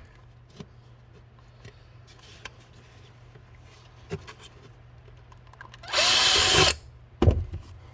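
Power drill running in one short burst of under a second, its motor tone rising as it spins up, about six seconds in, followed a moment later by a single sharp click.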